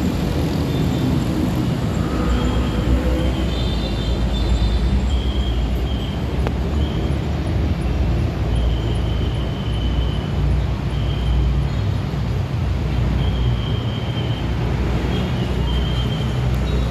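Traffic with large buses passing close by: a steady, loud low engine rumble, with short high-pitched tones now and then.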